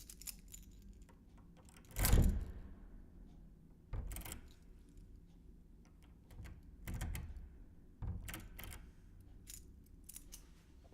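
A bunch of keys handled in short, separate bursts of jingling and clinking, with small clicks between. The loudest, about two seconds in, is a thump with a jangle and a short ring after it; smaller bursts follow about four, seven and eight seconds in.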